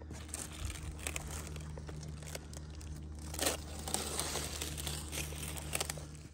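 Wax paper being peeled off cured fiberglass and crumpled, with irregular crinkling and tearing crackles, over a steady low hum.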